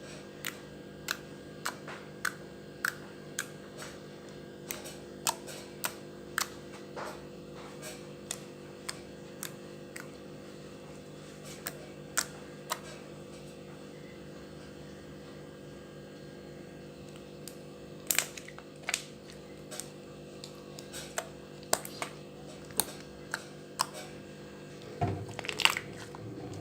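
Homemade face mask slime being squeezed and poked by hand for ASMR, giving irregular sharp clicks and pops that come more often near the end, over a steady low hum.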